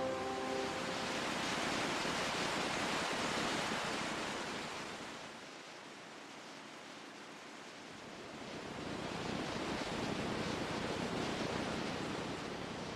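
Ocean surf: the wash of a wave swells and falls away, then another wave builds and rushes in.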